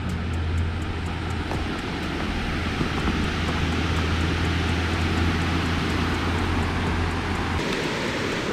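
Steady rush of water pouring over a large dam spillway; near the end the sound changes as the view moves to the foot of the falls.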